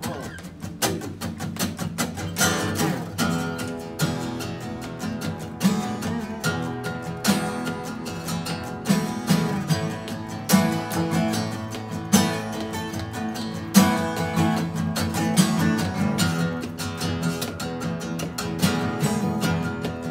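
Two acoustic guitars strummed together in a steady, driving rhythm, without singing.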